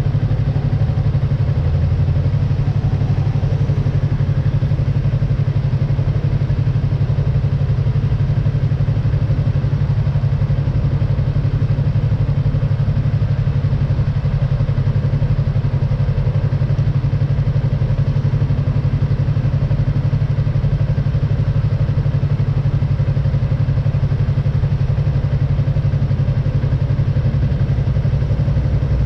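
Yamaha MT-03 motorcycle engine idling steadily while the bike stands still.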